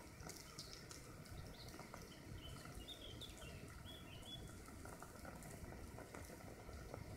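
Faint sizzle of thousands of wood ants swarming over the dry conifer-needle thatch of their mound: a dense, even patter of tiny crackling ticks. A bird chirps a few times around the middle.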